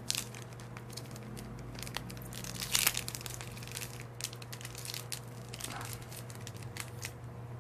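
Plastic wrapper of a trading-card pack crinkling and rustling as it is handled and pulled at to open it, in scattered crackles with a louder crinkling burst about three seconds in.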